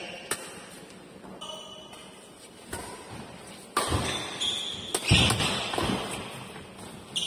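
Badminton rally: a racket hitting a shuttlecock on the serve, then a run of sharp racket-on-shuttle hits mixed with heavy thuds of players' feet on the court from about four seconds in, echoing in a large hall.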